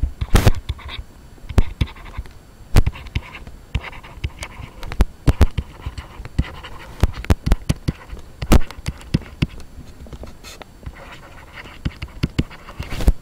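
Irregular clicks and taps of a pen stylus writing on a tablet, with soft scratchy strokes in between and a few louder knocks, close to the microphone.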